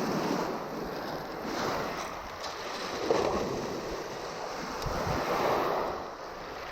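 Sea waves breaking and washing up the beach in several surges, with a little wind on the microphone.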